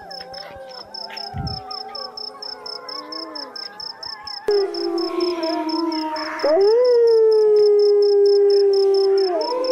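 Several canines howling in long, overlapping howls that bend up and down in pitch, growing louder about four and a half seconds in and again about six and a half seconds in. A high, steady pulsing chirp at about five pulses a second runs under the howls.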